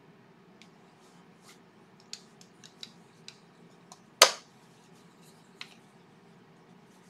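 Light clicks and taps of a metal Crush Grind mechanism being worked into the bore of an ash peppermill body, then one sharp, much louder knock about four seconds in and a last click a little later. The mechanism is a tight fit and will not go fully in by hand.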